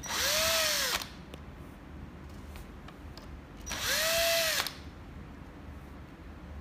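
Cordless drill-driver backing screws out of an aluminium lamp end cap, in two short runs about three seconds apart. Each run's motor whine rises and then falls in pitch.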